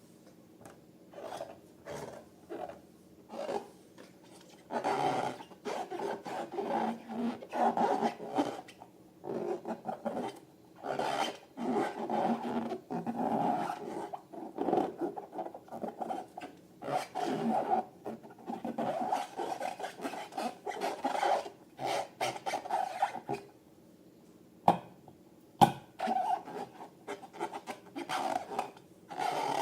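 Balloons and slime being handled: irregular rubbing and squishing, with two sharp clicks about a second apart near the end.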